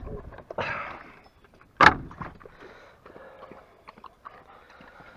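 A single sharp knock about two seconds in, the loudest sound, with smaller knocks and rustling around it.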